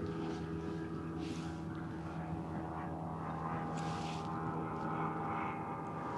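An engine running steadily, a constant even-pitched drone, with a couple of brief hissing swishes over it.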